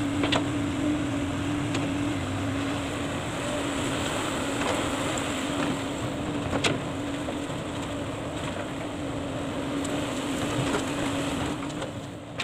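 Komatsu PC200 excavator's diesel engine running steadily with a constant hum as the machine works, with a few sharp knocks, the loudest about halfway through.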